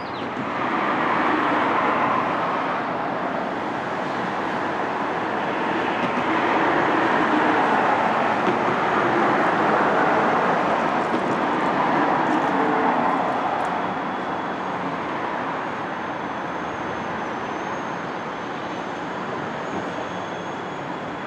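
Train running, a steady rumbling noise that swells twice, with a faint high steady whine coming in about two-thirds of the way through.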